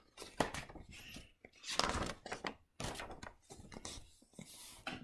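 Paper rustling and light taps as a paperback picture book is opened and its pages are turned, in short irregular bursts.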